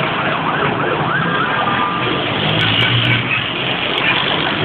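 An emergency vehicle siren wailing, its pitch rising and falling, over a continuous wash of noise. Emergency crews are responding to a large explosion and fire.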